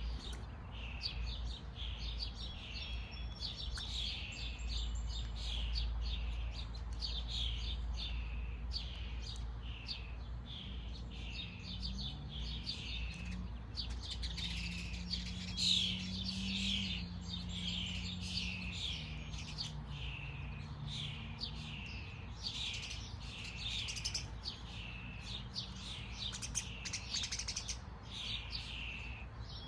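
Small birds chirping: a continuous run of short, high chirps, one after another, with a low rumble underneath.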